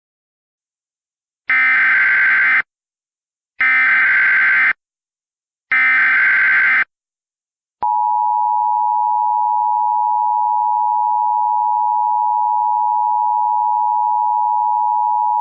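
Emergency Alert System SAME header: three bursts of warbling data tones, each about a second long, two seconds apart, encoding a severe thunderstorm warning activation. About halfway through, the steady two-tone EAS attention signal begins and holds.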